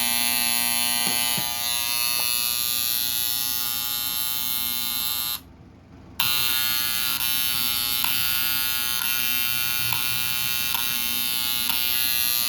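Septic aerator control panel's alarm buzzer sounding with a loud, steady electric buzz, cutting out for under a second about five and a half seconds in and then starting again. It is sounding because the air pump is not running: poor electrical contact keeps power from reaching the pump's motor.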